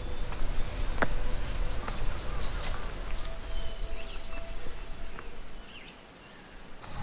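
Outdoor garden ambience: a low, uneven rushing noise with a few faint high chirps in the middle and a sharp tick about a second in, dying away near the end.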